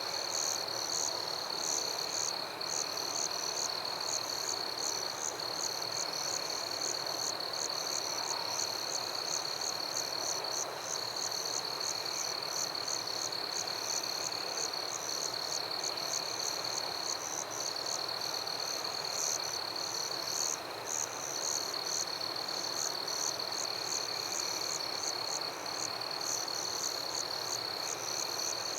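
Night chorus of crickets and other insects: one high, steady trill that breaks off briefly now and then, with rapid repeated chirps pitched above it.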